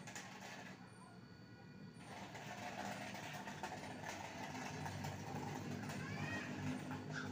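Low steady background hum, with a cat meowing near the end.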